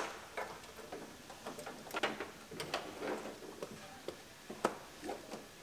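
Wiring harness in corrugated plastic loom being handled and fed through a car door's inner panel: quiet, irregular clicks and rustles of plastic against metal.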